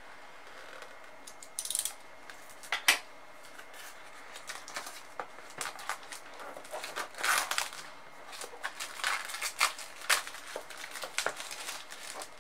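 Clear plastic shrink wrap on a cardboard box being slit with a craft knife and peeled off: crinkling and rustling with scattered clicks and taps, the sharpest click about three seconds in.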